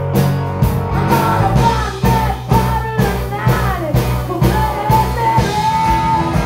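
Live rock band playing: acoustic and electric guitars, bass and drums in a steady beat, with a woman singing long, sliding notes over them.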